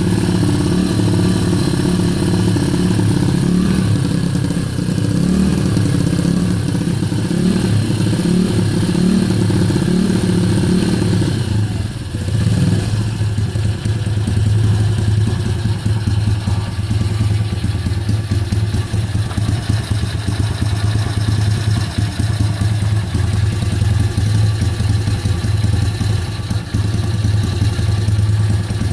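Kayo YX 140 pit bike's single-cylinder four-stroke engine running with the throttle held fixed. The revs rise and fall unevenly for about twelve seconds, then drop and settle into a steadier, lower run. The uneven revs at a fixed throttle are the hunting idle and sputtering the owner is showing as a fault.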